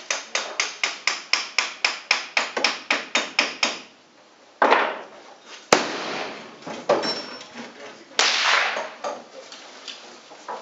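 Quick, even metallic tapping, about five strikes a second, that stops about four seconds in. After it come sharp black-powder gunshot reports echoing in an indoor range, the loudest about six seconds in, with further cracks just before and about eight seconds in.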